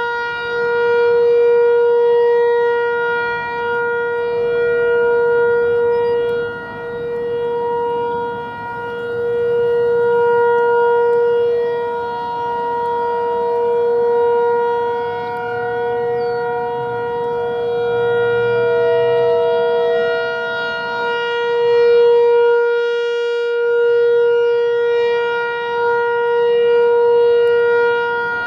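Federal Signal 508-128 rotating outdoor warning siren sounding a steady, unwavering Alert tone, swelling and fading as the horn turns toward and away.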